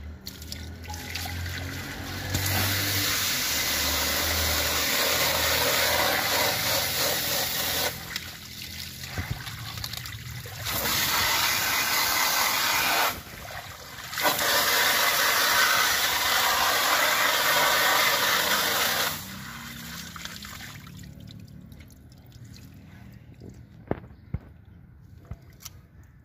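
Hose water spraying onto metal mesh range hood filters, rinsing off the caustic soda after degreasing, in three long bursts with short pauses between. The spray then stops, and a few light clicks follow near the end.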